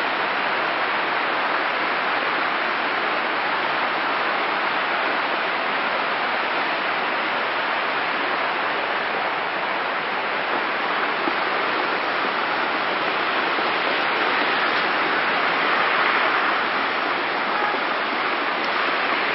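Steady rush of storm water: a cloudburst flash flood pouring down a rocky ravine into the sea, with heavy rain, swelling slightly near the end.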